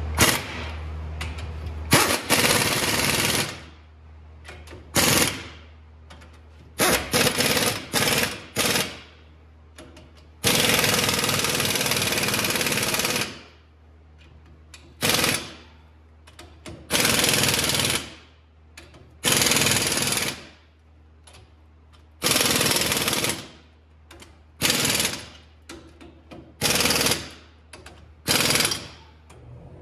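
Impact wrench running the 18 mm U-bolt nuts down onto a Ford Ranger's rear axle, in about a dozen short bursts of half a second to a second, with one longer run of about three seconds about ten seconds in.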